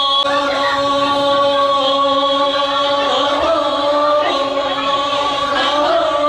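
Group of voices chanting together, holding one steady note.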